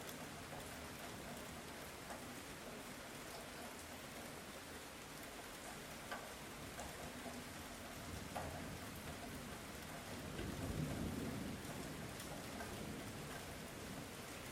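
Light rain falling steadily, with a few separate drops ticking, and a low rumble of distant thunder swelling and fading about ten seconds in.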